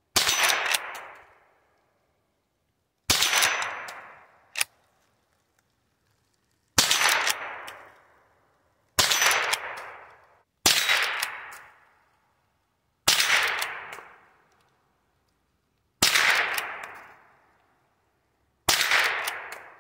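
Eight single shots from a Henry lever-action .22 rimfire youth rifle, spaced two to four seconds apart as the shooter works the lever between shots. Each sharp crack is followed by an echo that fades over about a second.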